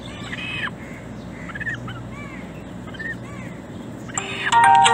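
Bird calls, about five short arched calls spread over a few seconds, over a low steady hum. A tune with bright ringing notes comes in about four seconds in and is the loudest thing at the end.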